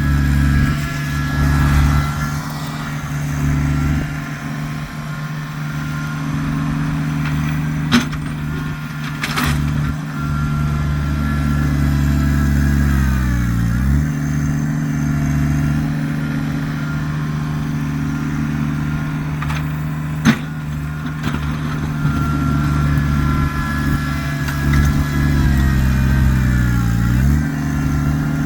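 Kubota tractor's diesel engine running steadily while plowing snow. Twice its pitch sags for about a second and comes back up, and there are a few sharp knocks.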